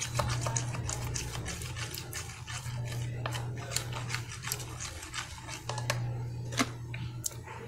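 Plastic spoon stirring and scraping sticky pink glue slime in a clear plastic tub, a quick run of small clicks and sticky smacks, as the slime is worked with laundry-detergent activator. A steady low hum runs underneath.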